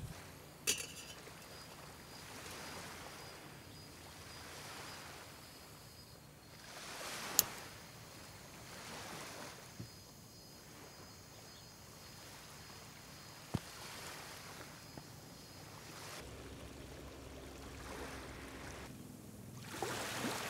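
Faint surf washing on a beach, swelling and fading every few seconds, with a few sharp clicks, the loudest about seven seconds in.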